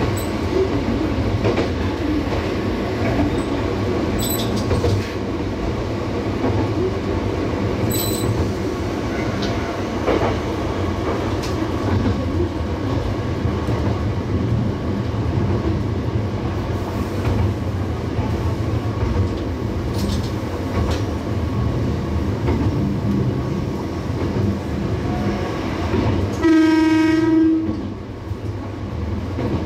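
Diesel railcar running along the track, a steady engine drone with wheels clattering on the rails. Near the end the train sounds its horn once, a warning blast of just over a second.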